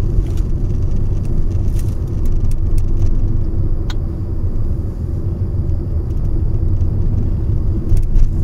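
Steady low rumble of a moving car's road and engine noise heard inside the cabin, with a few light clicks.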